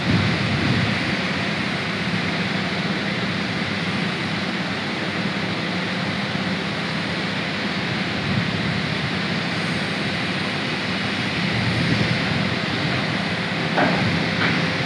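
Electric underslung crane running under test: a steady mechanical drone and hiss with a constant low hum, and a couple of sharp clicks near the end.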